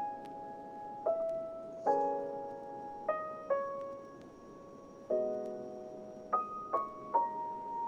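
Soft, slow background piano music: a gentle melody of single notes and chords, each struck and left to ring, a new one about every second.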